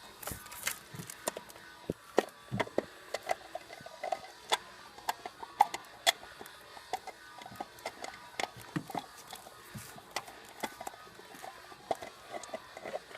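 Irregular light clicks and knocks of a distributor cap being handled and seated on the distributor, while its screw holes are lined up.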